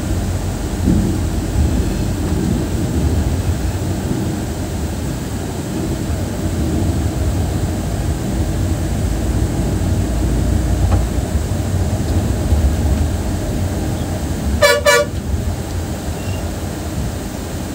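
Steady low rumble of a moving bus's engine and tyres on the road. Near the end, a vehicle horn gives two short toots in quick succession.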